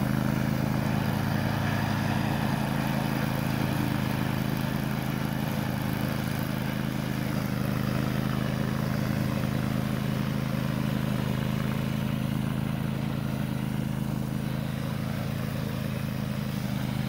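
Bad Boy zero-turn riding mower's engine running at a steady speed with the deck cutting tall grass, a constant, even drone.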